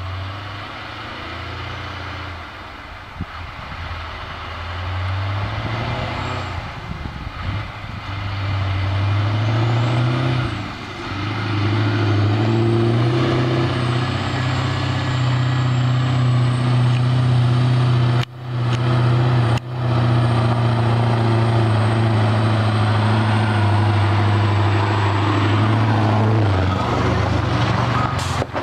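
Loaded Scania logging truck's diesel engine drone, growing louder over the first dozen seconds and then running steady and strong; the note drops near the end as the truck passes close by.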